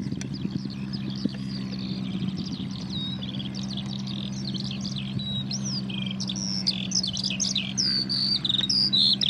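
Birds chirping, a busy run of quick rising and falling calls that crowds together and grows louder towards the end, over the steady low drone of a De Havilland Canada Dash 8 turboprop taking off.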